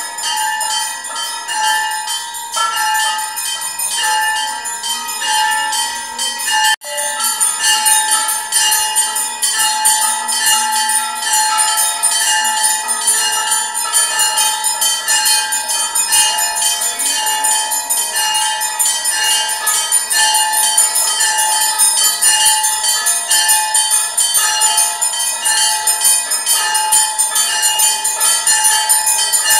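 Temple bells ringing rapidly and without pause during the puja worship before the deities. There is a momentary break about seven seconds in.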